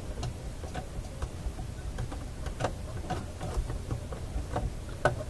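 Irregular light clicks and ticks from the Symphonic 962 record changer's metal mechanism as it is worked by hand, over a low steady hum. The mechanism is stiff, its old lubricant gummed up and in need of oiling.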